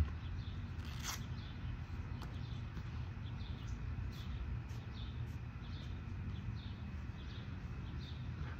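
A bird calling with short, repeated chirps, about two a second, over a steady low outdoor rumble, with one sharp click about a second in.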